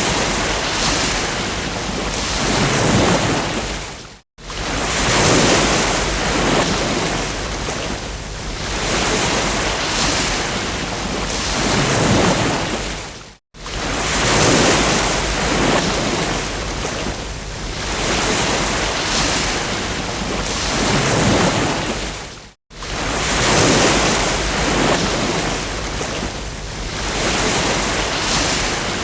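Ocean waves breaking on a beach, a steady surf that swells and ebbs every few seconds. The sound cuts to silence for a moment three times, about every nine seconds.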